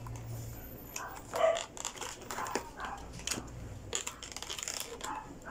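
Plastic packaging being handled and opened by hand: irregular crinkles, rustles and small clicks, with one short louder sound about a second and a half in.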